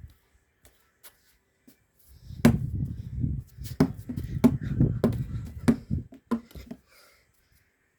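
A basketball being bounced and handled: a run of sharp thumps, about one every half second to second, over rumbling movement noise, starting about two seconds in and stopping shortly before the end.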